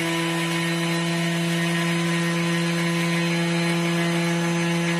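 Thermomix running at its top speed (speed 10), milling raw sugar into icing sugar: a steady motor whine at constant pitch over a hiss.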